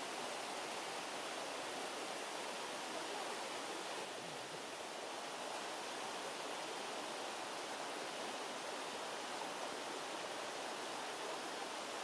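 A small mountain waterfall, thin streams of water falling down a rock face and splashing onto the stones below: a steady rushing hiss.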